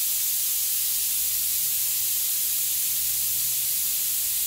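Steady high-pitched hiss with a faint low hum underneath, unchanging throughout: the background noise of the room and recording.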